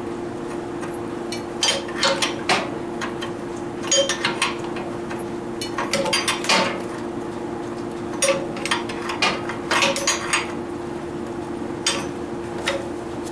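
Metal hand tools clinking and clanking in scattered clusters of sharp knocks, over a steady hum.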